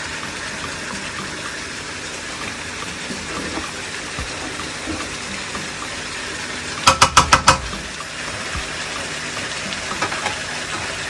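Chicken, onions, garlic and ginger frying in a wok, a steady sizzle. About seven seconds in, five quick, sharp knocks.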